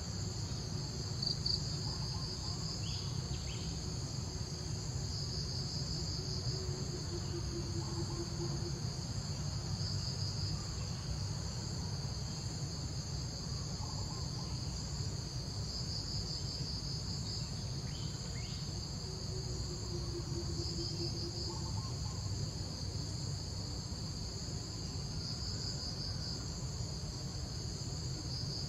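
Steady chorus of insects: a continuous high buzzing that swells and fades every few seconds, over a low steady background rumble.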